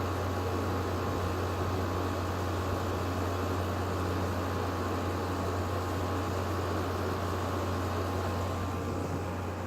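LG 12,000 BTU air conditioner running: a steady low hum under the even rush of its fan blowing air.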